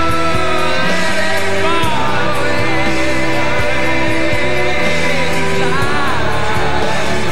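Rock band playing live: a male voice sings a wavering melody over a steady drum beat and held instrumental notes.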